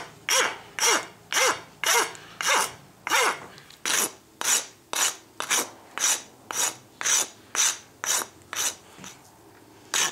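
Farrier's rasp scraping across a dry birch knife handle, about two strokes a second, to flatten and shape it. The strokes pause briefly near the end, then resume.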